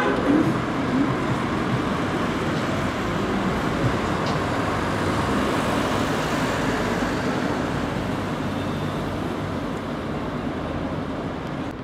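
City street traffic: passing cars make a steady rushing noise that slowly fades.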